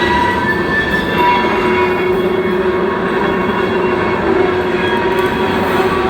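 Freight train rolling past, a steady loud rumble of cars running on the rails.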